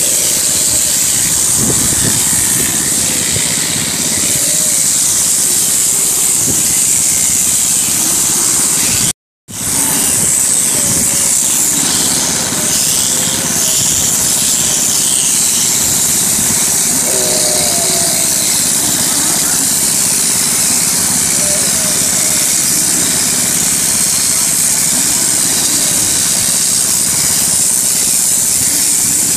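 Small petrol engine running steadily to drive camel-shearing clippers, with a strong high hiss over it. The sound cuts out completely for a moment about nine seconds in.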